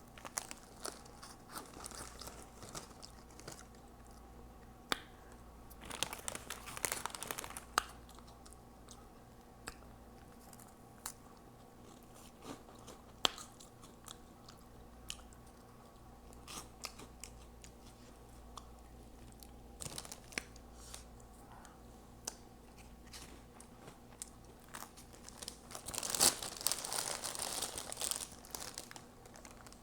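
Chewing and crunching of Hot Cheetos Puffs, with sharp wet mouth clicks and smacks between bites. There are two louder crunchy stretches, about six seconds in and near the end.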